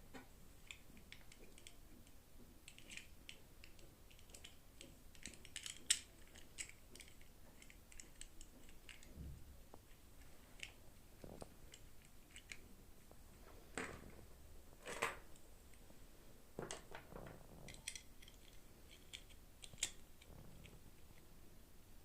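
Toy packaging being handled and opened: scattered small clicks, snips and crinkles, the sharpest click about six seconds in.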